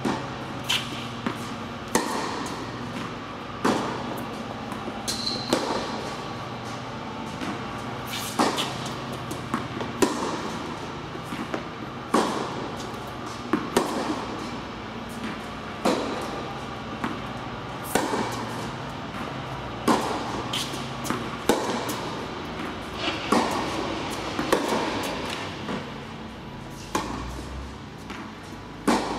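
Tennis rally on an indoor court: racquets striking the ball about every two seconds, with the ball's bounces and smaller knocks between, in a reverberant hall.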